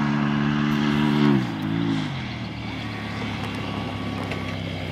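Polaris RZR Turbo S side-by-side's turbocharged engine running at steady high revs, then about a second in the throttle comes off and the revs fall, settling to a lower, quieter run.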